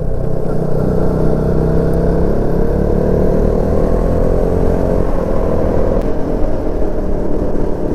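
Motorcycle engine running steadily while the bike is being ridden along the road, with a constant low rumble under the engine note.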